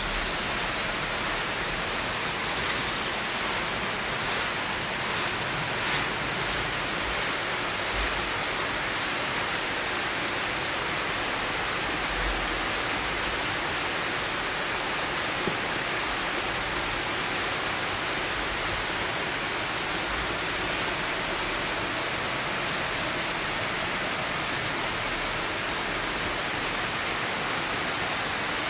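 Steady rushing of flowing water, like a stream or small waterfall, unchanging throughout. A few faint soft taps come through a few seconds in.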